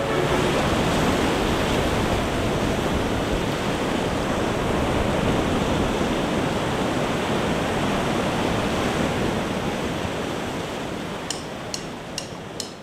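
Ocean surf breaking on a beach: a steady, even rush of waves that fades a little toward the end, with a few faint ticks just before it stops.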